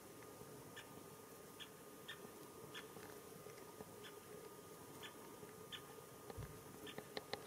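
Great spotted woodpecker giving short, sharp "kik" calls, faint and repeated about once a second at uneven intervals, with a few sharper clicks near the end.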